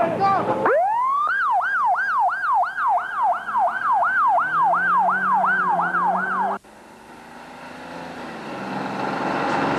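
Police car siren winding up, then yelping: fast, even sweeps that each fall in pitch, about three a second. It cuts off suddenly about two-thirds of the way through, leaving a quieter noise that slowly grows louder.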